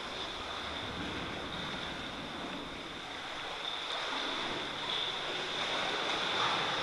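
Sea water washing and lapping inside a rock sea cave, a steady surf-like noise, with a thin steady high whine over it.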